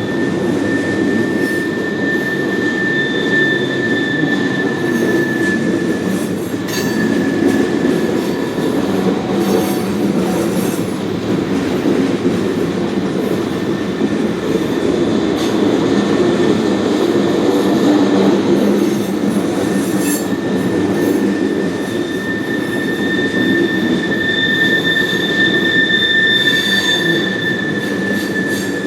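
Freight train of ethanol tank cars rolling past with a steady rumble. Wheel flanges squeal at a high, steady pitch through the first six seconds and again through the last third.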